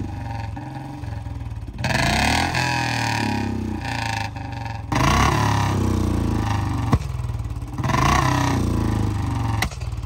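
Royal Enfield BS6 Bullet's single-cylinder engine revved in three blips, with a sharp crack about seven seconds in and another near the end. These are exhaust pops ('patakas') set off by a toggle switch wired into the engine's wiring harness.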